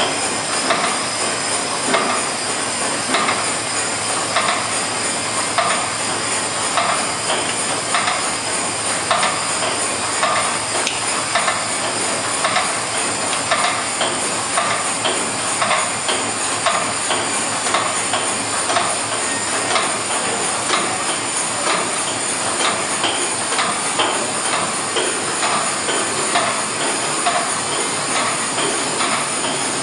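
Large reciprocating steam engine of the tug ST Cervia running steadily: a regular, repeating clank of the moving parts over a steady hiss of steam.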